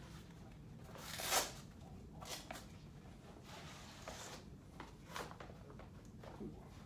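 Handling noises from cricket bats being moved about: a rustling swish about a second in, the loudest, then a few softer rustles.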